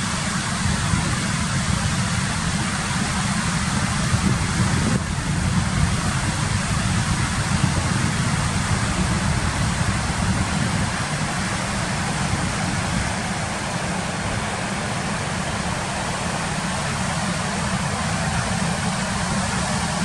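Steady rush of a waterfall's white water pouring between boulders, with a strong low rumble underneath.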